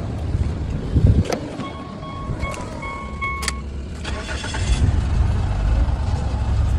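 A car engine idling with a steady low rumble after being started by jumping the starter with a single wire. About a second in there is a knock, followed by a short run of electronic beeps, and the engine gets louder near the end.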